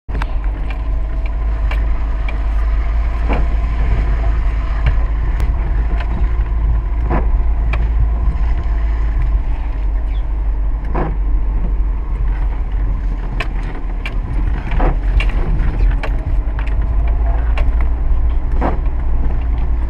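Inside a car's cabin, driving over a rough, muddy dirt track: a steady deep engine and road rumble with frequent sharp knocks and rattles as the body and suspension take the bumps.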